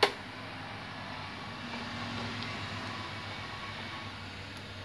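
A metal ladle knocks sharply once against the metal pan at the start, then a steady hiss continues as thick moong dal is stirred.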